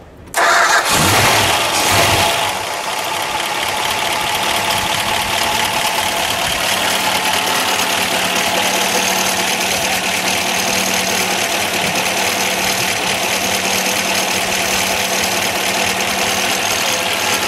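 1965 Plymouth Barracuda's 273 cubic-inch Commando V8 starting: it catches abruptly about half a second in, runs fast and loud for about two seconds, then settles into a steady, smooth idle.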